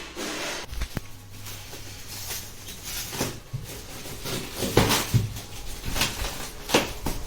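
Irregular knocks and rustles from packaging and parts being handled, with a few louder bangs in the second half.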